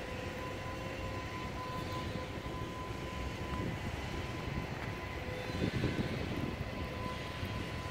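Steady mechanical drone with a constant faint hum over it, swelling briefly about six seconds in.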